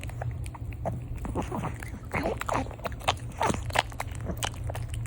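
Dog crunching and chewing a crinkle-cut French fry: a run of quick crunches and mouth clicks, busiest in the middle.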